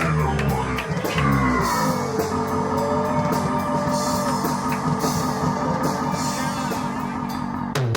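Music from a DJ set: a track with guitar and drums playing with a steady beat.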